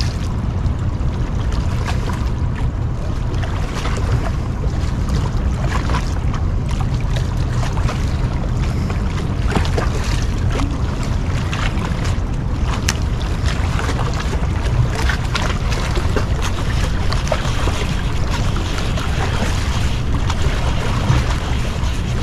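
Steady wind rumble on the microphone with water lapping below, scattered with small clicks and splashes.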